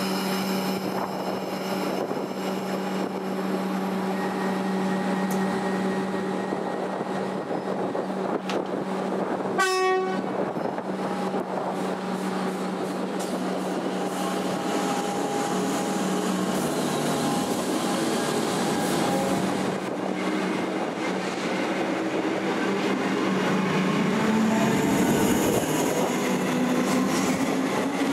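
Comeng electric train standing with a steady hum, then one short blast on its new X'Trapolis-type horn about ten seconds in. Later it pulls away, the traction motors whining up in pitch as it accelerates.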